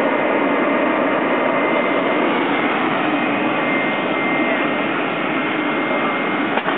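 Iron-melting cupola furnace running, a steady, unbroken rushing noise from the blast air forced through it.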